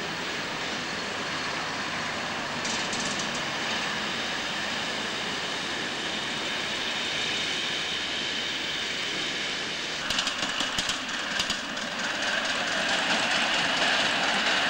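Miniature ride-on live-steam locomotive running along its track, a steady rushing noise. About ten seconds in, a few clicks, and the sound changes to a louder steady hiss.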